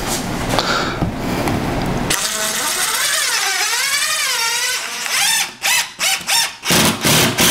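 Cordless drill driving screws through a half-inch MDF board into the wall. Its motor runs under load, then whines up and down in pitch for a few seconds, and from about five seconds in comes in short bursts about twice a second as the screw is seated.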